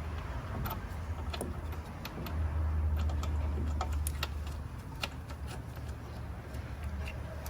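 A steady low hum, louder for a couple of seconds in the middle, with scattered light metallic clicks and taps from hand work on the car's front suspension and axle.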